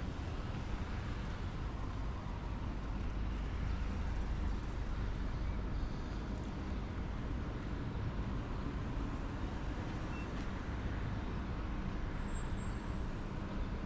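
Steady city road traffic: a continuous rumble of cars and trucks.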